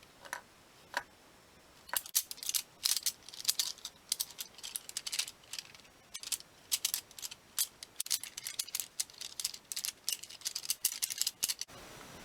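A few isolated clicks, then from about two seconds in a dense run of quick, irregular dry rattling and crackling that stops shortly before the end.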